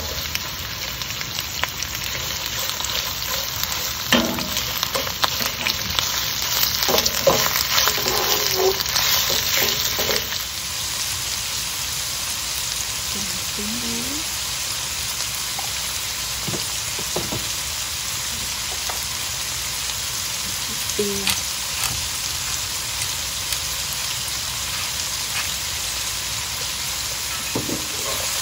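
Shrimp and minced garlic sizzling in hot oil in a nonstick wok, stirred with a wooden spatula that taps and scrapes the pan. The stirring is busiest for about the first ten seconds, then the sizzle runs steadier with occasional taps.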